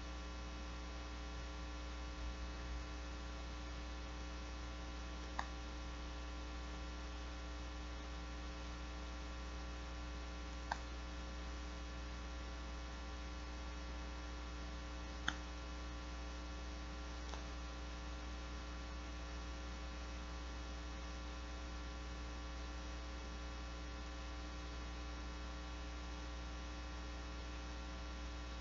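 Steady electrical mains hum, with four faint short clicks spread through it.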